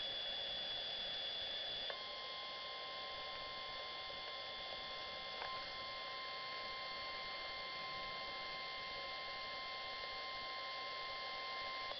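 NOAA Weather Radio's 1050 Hz warning alarm tone sounding as one steady, unbroken tone for about ten seconds, starting about two seconds in and stopping abruptly at the end. It is the weekly test of the alarm that switches on weather-alert receivers. It plays over a steady hiss and a faint high whine from the radio.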